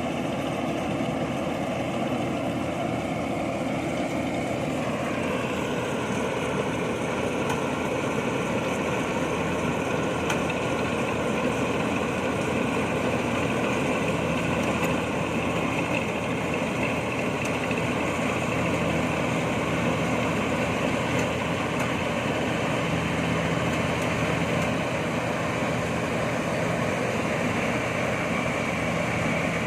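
INARI combine harvester running steadily, engine and threshing machinery together, while harvesting rice; its tone shifts down slightly about five seconds in.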